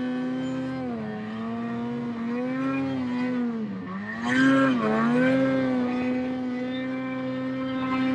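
Ski-Doo Summit snowmobile's two-stroke engine running at high revs while ploughing through deep powder, its pitch dipping briefly about a second in, then dropping and surging back louder around four seconds in as the throttle is worked, before holding steady again.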